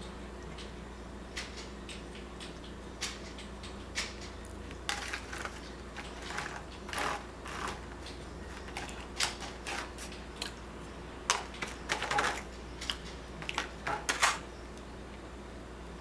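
Eating sounds from someone working through a slice of cherry pie: irregular clicks, taps and short scrapes, sparse at first and coming thicker and louder in a cluster near the end.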